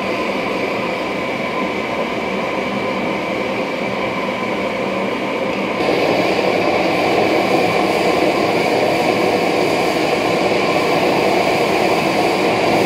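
Gas forge burner running with a steady rushing noise while a knife blade heats for hardening; it grows louder and fuller about six seconds in.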